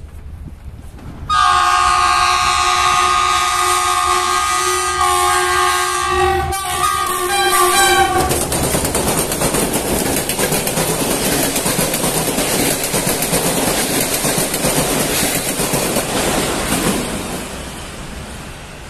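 A passenger train's locomotive horn sounds one long chord of about seven seconds as it approaches, then the locomotive and coaches pass close by, wheels clattering on the rails, the noise fading near the end as the train runs away.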